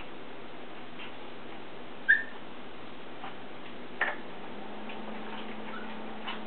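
Small puppies playing on a tile floor: light scattered clicks of claws and toys, a short high squeak about two seconds in, and a sharper knock about four seconds in.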